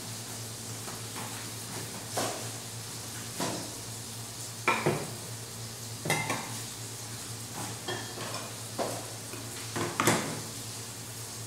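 Scattered clinks and knocks of metal pots, utensils and dishes being handled in a kitchen, about eight separate strikes over a steady low hum and hiss.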